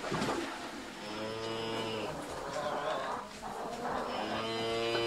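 Two long, drawn-out moos, one about a second in and another starting near the end, with noisier rustling sounds between them.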